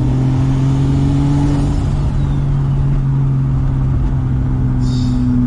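Turbocharged Toyota Supra engine droning steadily while cruising, heard from inside the cabin along with road noise, with a brief hiss near the end.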